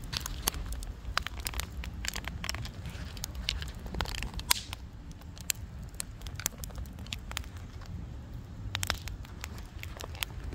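Fire in a fire pit crackling, with irregular sharp pops over a low steady rumble.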